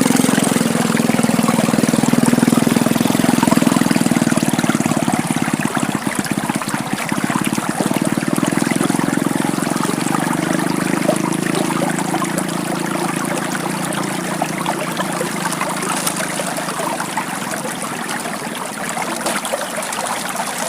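Water trickling and flowing over stones, a steady splashy hiss, with a low hum underneath that eases off about halfway through.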